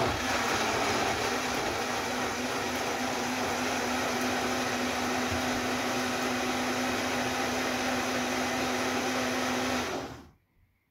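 Breville personal blender running steadily, blending chopped apple, clementine and passion fruit with orange juice into a smoothie, with a steady motor hum under the whirring. It starts abruptly and cuts off about ten seconds in, winding down briefly.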